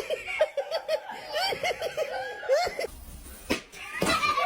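A person laughing in quick high-pitched bursts, two runs of rapid 'ha-ha-ha' notes, with a sharp click about three and a half seconds in.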